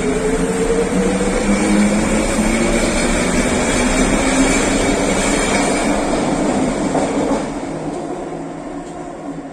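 SkyTrain car running on the elevated guideway: a steady rush of wheel and track noise under the whine of its linear induction motors, which rises in pitch as the train gathers speed. The sound dies away over the last two seconds.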